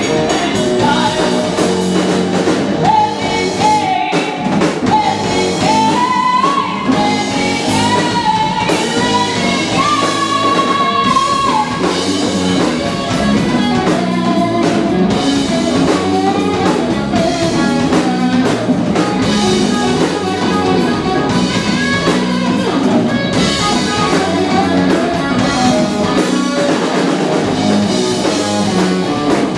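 Live rock band playing: electric guitars and drum kit, with a woman singing held, rising notes for about the first twelve seconds, after which the band plays on without vocals.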